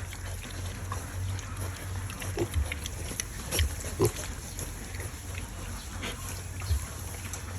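Pigs eating bananas, with pig sounds and irregular short smacks and low knocks as they feed.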